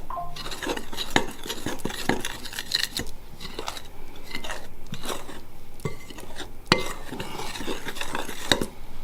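A utensil stirring a dry flour mix in a bowl: steady, irregular scraping and clicking against the bowl, with two sharper knocks in the second half.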